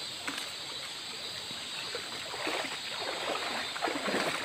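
Shallow river water flowing steadily over a rocky bed. From about halfway through, irregular splashing joins it as someone wades through the shallows, strongest near the end.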